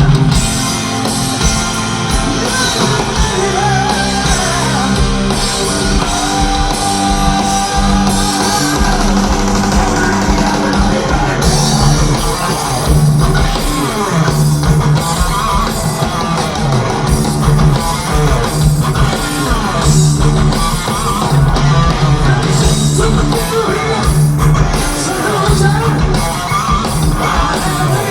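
Heavy metal band playing live, heard from the audience: distorted electric guitar over bass and drums.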